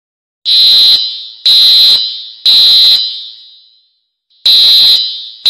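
Fire alarm horn sounding the temporal-three evacuation pattern: three high, loud beeps about a second apart, a pause, then the next set of beeps begins. Each beep echoes briefly after it cuts off, and the recording is so loud that it distorts.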